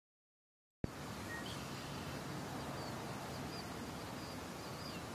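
Outdoor nature ambience that starts abruptly a little under a second in: a steady background hiss with faint, brief bird chirps scattered through it.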